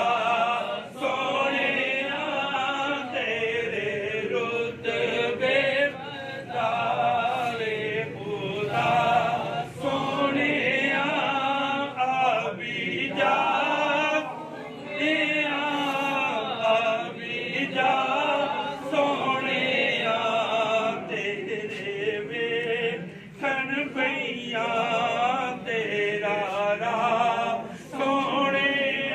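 A man singing devotional verse in long, wavering, drawn-out phrases with short breaks for breath.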